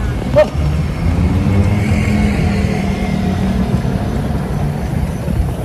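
Road traffic: a car driving past close by, its engine and tyres giving a steady low rumble. A sharp knock about half a second in.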